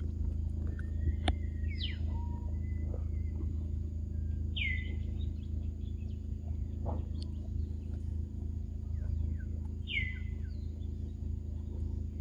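Wild birds calling, with two clear downward-sweeping calls about four and a half and ten seconds in and a few fainter chirps between, over a steady low background hum. A single sharp click sounds a little over a second in.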